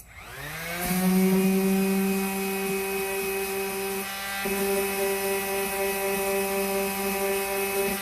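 Electric random orbital sander with a dust bag switched on, its motor whining up to speed within about a second and then running steadily as it sands painted house siding, with a brief dip about four seconds in.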